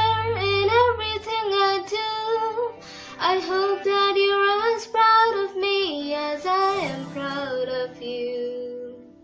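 A child singing the closing lines of a song, a melody with long held notes and light musical backing, with the last note fading out near the end.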